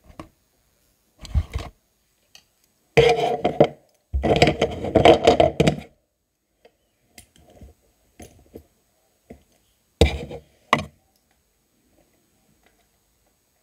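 Close handling noise: objects being picked up, scraped and knocked about near the microphone. It comes in a few loud bursts, the longest about three seconds in, with small clicks between them.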